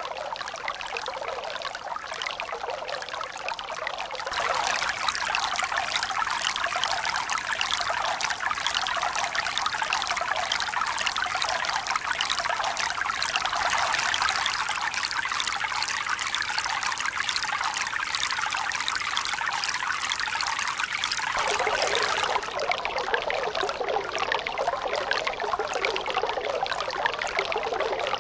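Running water trickling and pouring in a steady hiss, with no wave swells. It turns abruptly louder about four seconds in and slightly duller near the end.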